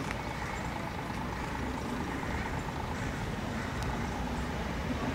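Narrow-gauge electric tram running slowly past on its rails, a steady low rumble.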